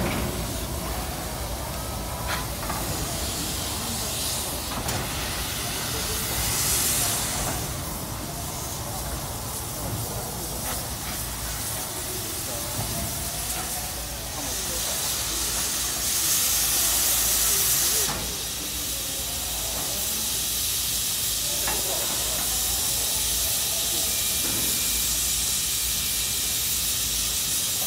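JNR 8620-class steam locomotive hissing steam: two louder spells of hiss, about six seconds in and again around sixteen to eighteen seconds, then a steady hiss.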